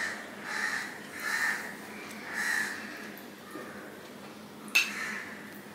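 A man chewing and breathing hard through his nose while eating rice and chicken curry by hand, a soft swell about once a second for the first few seconds. About five seconds in comes one sharp click, the serving spoon knocking against the glass curry bowl.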